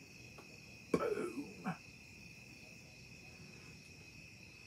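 Crickets chirping steadily in the background. About a second in, a man makes a short vocal sound in three quick pieces, each falling in pitch.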